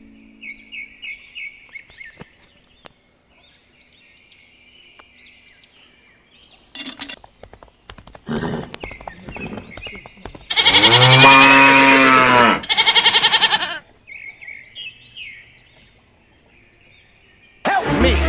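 Birds chirping, then a sheep bleating loudly about halfway through: one long call, then a shorter one. Another loud sound starts just before the end.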